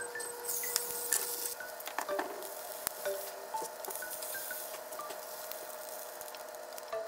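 Food sizzling in oil in a frying pan, with a louder burst of sizzle in the first second or so as the glass lid comes off, then a softer sizzle under light clicks of wooden chopsticks against the pan as the pieces are picked out.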